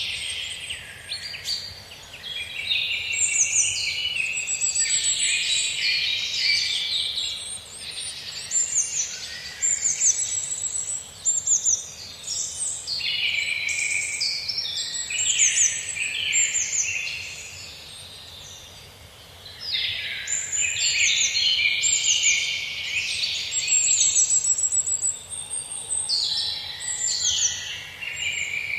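Several birds chirping and singing in quick, overlapping high trills and twitters, with a short lull about two-thirds of the way through.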